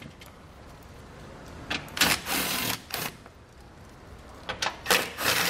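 Cordless power driver with a 10 mm socket spinning out the bolts that hold a car's underbody splash shield to the subframe. It runs in two bursts: one about two seconds in lasting about a second, and a shorter one near the end.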